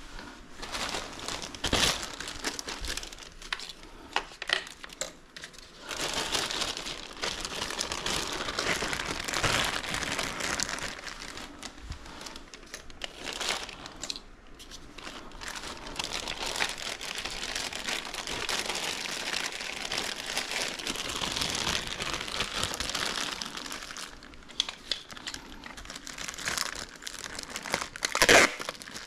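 Plastic packing wrap being handled and crinkled while small parts are wrapped: a continuous irregular rustling with sharper crackles, the loudest near the end.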